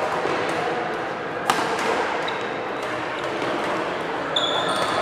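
Badminton rally: rackets striking the shuttlecock as sharp clicks, the loudest about one and a half seconds in, with short high squeaks of court shoes on the hall floor. Background voices echo in the large hall.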